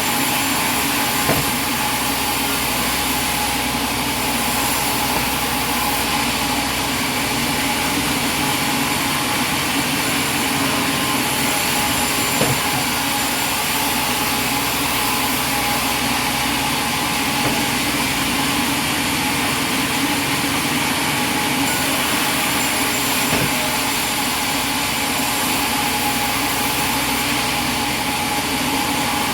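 Sawmill machinery running steadily, a dense mechanical din with a constant hum, broken by a few single sharp knocks: about a second in, around twelve seconds in and around twenty-three seconds in.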